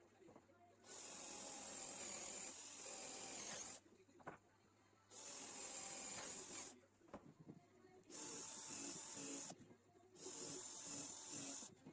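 Four bursts of hissing, rasping noise, each lasting two to three seconds, with short pauses between them.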